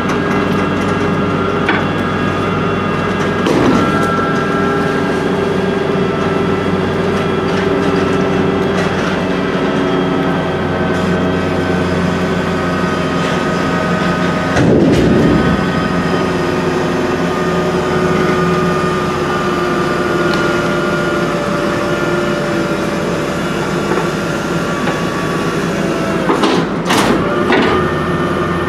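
Hydraulic packer of a 1987 Leach Sanicruiser rear-load garbage truck running through a compaction cycle, the truck's engine working steadily under the hydraulic load with a whine that shifts in pitch now and then. The packer blade gives a clunk three times, about every twelve seconds.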